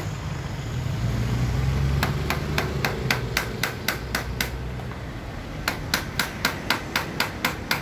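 Rapid, evenly spaced sharp taps from a hand tool working on a car roof-rail bracket, about four a second, pausing for about a second midway. A low rumble underlies the first half.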